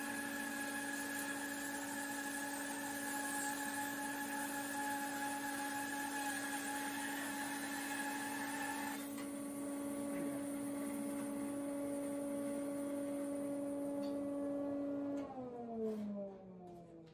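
Laguna 14BX bandsaw with a carbide-tipped blade running steadily while resawing a sycamore log, a constant hum and whine over the cutting noise. The higher cutting noise thins out about nine seconds in. Near the end the saw is switched off, and its pitch falls as the wheels and motor wind down.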